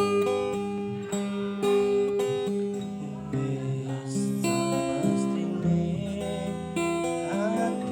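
Music: a plucked string instrument playing a melody of held notes, several bending in pitch near the end.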